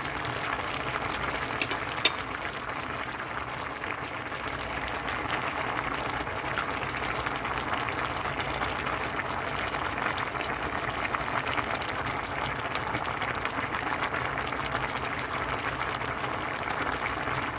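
A pot of dinengdeng vegetable broth at a rolling boil, bubbling steadily, with a single sharp click about two seconds in.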